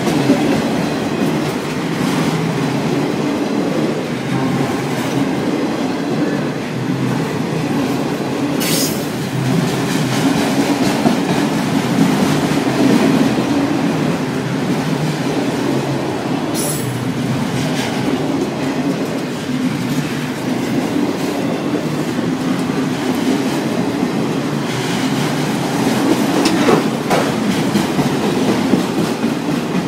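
CSX autorack freight train rolling past close by: a steady rumble of wheels on rail, with two brief high squeals about a third of the way in and again just past halfway.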